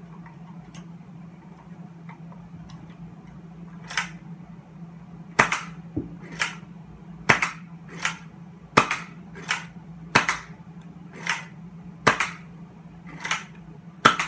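Nerf Fortnite 6-SH hammer-action dart blaster being worked repeatedly: about a dozen sharp plastic snaps of the hammer cocking and releasing, roughly one a second, starting a few seconds in. A steady low hum runs underneath.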